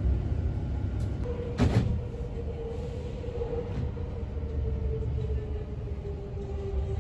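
Passenger train running with a steady low rumble; a single loud clunk about a second and a half in, then a steady whine that slowly falls in pitch.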